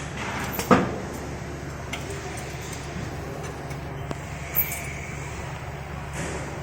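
Steel chain welding machine running with a steady hum, one sharp metallic clank about a second in, a few lighter clicks and a brief high hiss near the middle.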